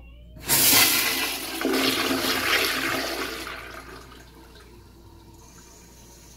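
Gerber Ultra Flush pressure-assisted toilet flushing: a sudden loud rush of water starts about half a second in, stays strong for about three seconds, then dies down to a quieter hiss.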